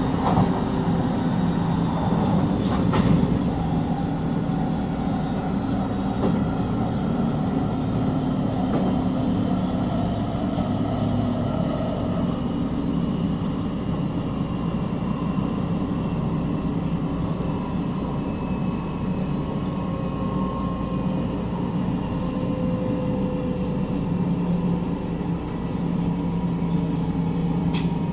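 Electric NS stopping train running along the line, heard from inside the driver's cab: a steady rumble of wheels on rail with a faint motor whine that slowly drifts in pitch, and a single click about three seconds in.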